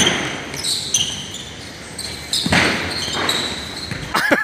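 Basketball bouncing on a hard sport-court surface during play, with sharp bounces at the start and about halfway through, and short high sneaker squeaks throughout.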